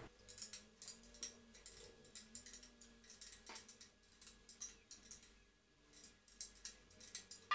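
Faint, irregular small clicks and light taps from a kendang jaranan being tuned, its tension bolts worked around the rim to tighten a head that is still slack.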